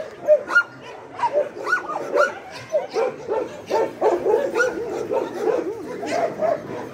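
Several dogs barking and yipping as they play, short high calls coming several a second and overlapping most densely in the middle.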